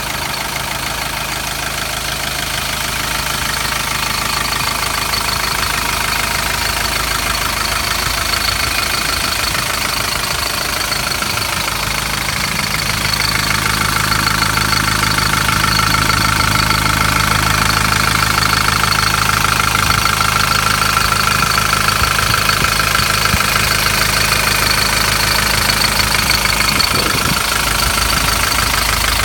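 Mercedes-Benz OM616 2.4-litre four-cylinder diesel idling steadily with the usual diesel knock, growing a little louder about halfway through.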